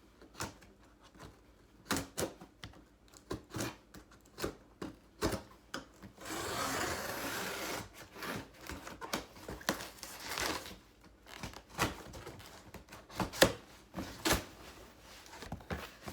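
A cardboard shipping box being opened and handled: scattered rustles, taps and scrapes, with one steady rasp lasting about a second and a half some six seconds in, and two sharp knocks near the end.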